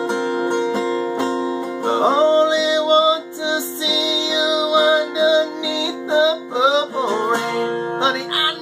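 Acoustic guitar strummed in a steady rhythm, with a man singing long held, wavering notes over it from about two seconds in.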